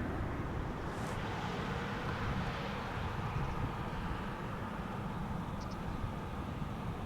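Steady rumble of a Boeing 767-300ER's twin jet engines, heard in the open air.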